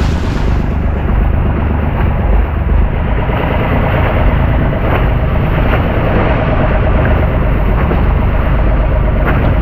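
Motorized outrigger boat (bangka) under way: a steady engine drone with water rushing and splashing against the hull and outrigger float, and wind on the microphone.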